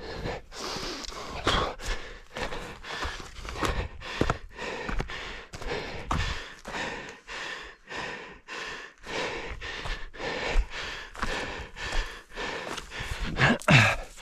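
A runner's footsteps, about two to three a second, with heavy breathing while running. A brief louder sound near the end.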